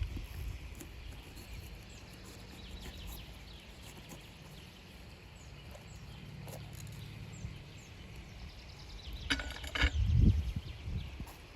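Outdoor ambience: a low rumble with faint bird chirps. A loud, rapid rattling burst comes about nine seconds in and lasts about a second.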